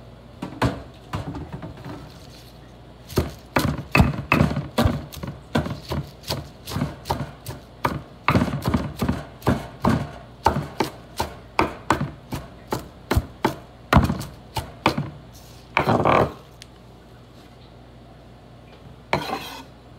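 Kitchen knife chopping fresh spinach on a wooden cutting board: a steady run of sharp knocks, about two a second, followed by two longer scraping sounds near the end.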